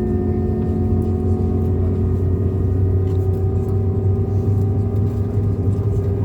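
Steady cabin drone of an Airbus A220-300 standing with its Pratt & Whitney PW1524G geared turbofan engines idling: a low hum with several thin whining tones, a couple of them drifting slowly upward.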